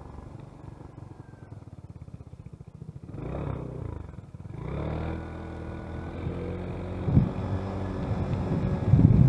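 Engine of a small road vehicle running at low speed, heard onboard, its pitch and loudness rising as it picks up speed in the second half. Wind buffets the microphone in low gusts near the end.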